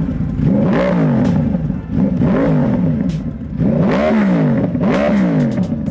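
2014 Yamaha R1's crossplane inline-four with a TOCE exhaust, revved at a standstill: a series of quick throttle blips, each pitch rising and falling back to idle.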